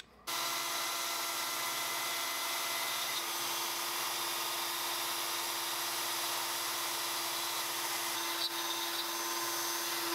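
Avid CNC router's spindle running steadily with a constant tone while its end mill cuts plywood. The sound comes in suddenly just after the start.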